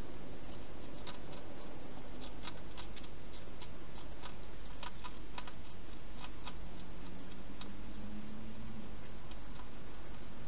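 Wild hedgehog eating at the bowls inside a plastic feeding box: a run of irregular sharp crunching clicks as it chews, over a steady hiss, thinning out near the end.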